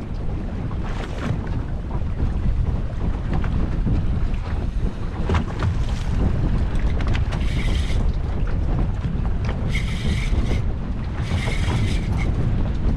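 Wind buffeting the microphone over open water, a steady low rumble, with four short higher-pitched bursts in the second half.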